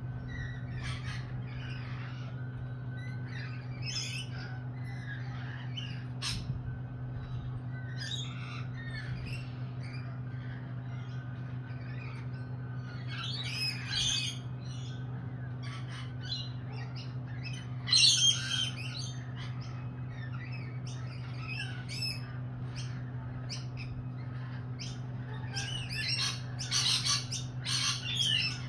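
Lorikeets squawking and chattering in short, scattered calls, with the loudest call a little past halfway and a busy flurry of calls near the end. A steady low hum runs underneath.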